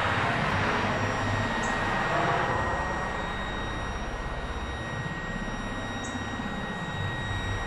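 Mack front-loader garbage truck's engine running while the truck stands still, with a thin steady high whine over it; the noise is a little stronger in the first couple of seconds.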